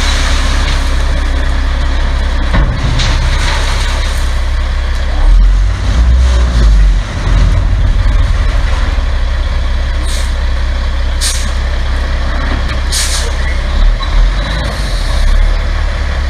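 Gravel delivery dump truck's diesel engine running with a heavy low rumble that surges louder for a few seconds near the middle, and three short air-brake hisses in the second half.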